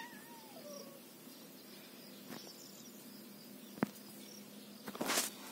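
A kitten gives one short meow that falls in pitch. About four seconds in there is a single sharp click, and near the end a brief rustling scuffle.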